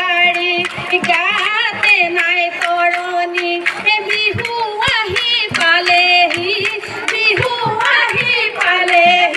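Women's Jeng Bihu folk song: a lead female voice sings into a microphone with a wavering, ornamented melody over a quick beat of clapping.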